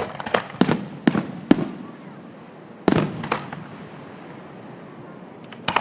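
Fireworks going off in a run of sharp bangs: five in quick succession in the first second and a half, two more about three seconds in, and another pair near the end.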